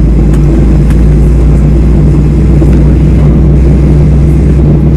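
Steady low cabin rumble of a Boeing 737-800 taxiing, its CFM56-7B engines running at low thrust, with a few faint clicks.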